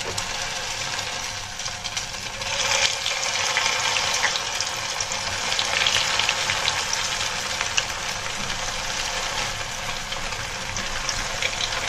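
Potato fingers coated in Maggi noodles deep-frying in hot oil in a kadai, with a steady sizzle and crackle. The sizzle gets louder about two and a half seconds in as more pieces go into the oil.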